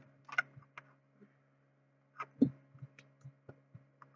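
A few short clicks and soft taps, one louder about two seconds in followed by several small knocks in quick succession, over a steady low electrical hum.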